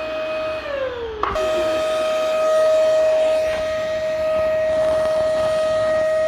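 Vacuum cleaner motor running with a steady high whine over a rushing air noise. About half a second in the whine sags down in pitch, then after a sharp click it is straight back at full pitch and runs on steadily.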